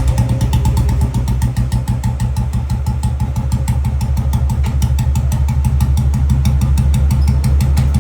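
Old-model Royal Enfield Bullet single-cylinder engine idling with a steady, even thump.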